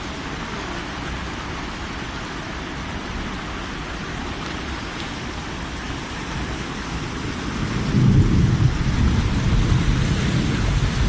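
Heavy downpour hissing steadily. About eight seconds in, a low rumble of thunder swells up and keeps going under the rain.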